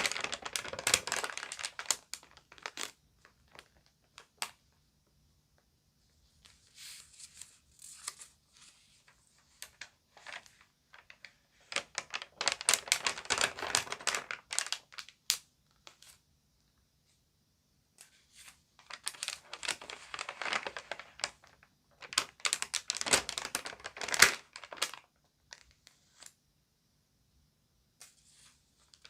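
Crinkly magazine pages being handled and turned, crackling in several bursts of a second or two with quiet pauses between them.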